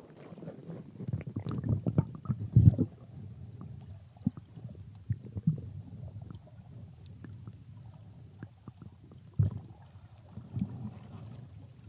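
Muffled underwater sound of the sea picked up by a submerged camera: a low, irregular sloshing and gurgling with small knocks against the housing, loudest about two to three seconds in as the camera goes under, and a sharper knock near the end.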